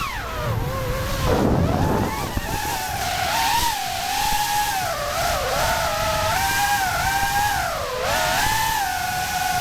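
Cinewoop FPV drone's motors whining, the pitch falling right at the start and then wavering up and down as the throttle changes. A short rushing noise comes about one and a half seconds in.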